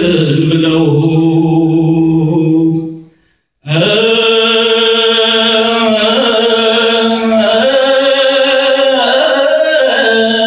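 Sunday school choir singing an Ethiopian Orthodox mezmur (hymn), voices together on long held notes. The singing breaks off for a moment about three seconds in, then resumes.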